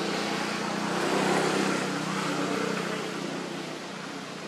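Steady engine hum with a hiss over it, loudest about a second in and then fading.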